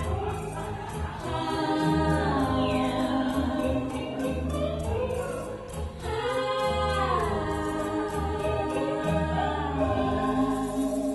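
Two women singing a song together into microphones over instrumental accompaniment with a steady bass line; the accompaniment stops shortly before the end as the song finishes.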